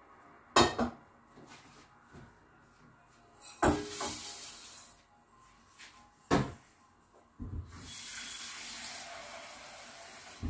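Three sharp clanks of metal kitchenware, then water running steadily for about three seconds near the end.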